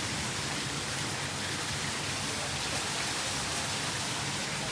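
Heavy storm rain pouring down in a steady hiss.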